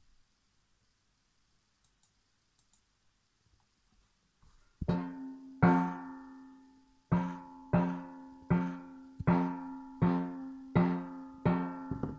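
Homemade steel tongue drum: after about five seconds of quiet, a tongue is struck nine times in an uneven rhythm, each strike ringing with a fundamental and several overtones and then dying away. The drum is being tuned so that each tongue's overtones fall at the octave and fifth.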